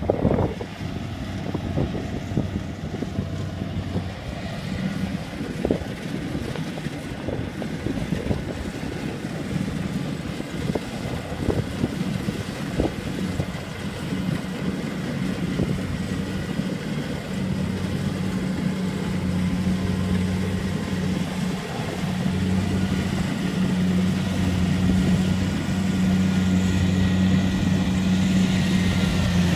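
Rice combine harvester running as it cuts through the crop: a steady engine drone that grows louder in the second half as the machine comes closer.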